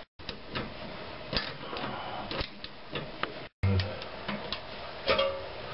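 Ratchet of a long click-type torque wrench clicking in short, irregular runs as the lower shock absorber nut is tightened toward 95 Nm.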